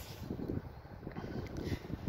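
Wind buffeting the microphone: a faint, uneven low rumble.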